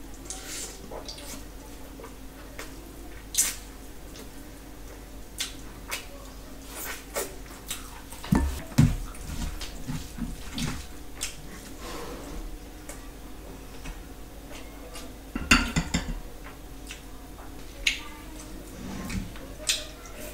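Close-miked eating sounds: wet mouth clicks and smacks of chewing, with fingers mixing rice and gravy on a steel plate. A few dull knocks are the loudest part, about eight and a half and fifteen and a half seconds in.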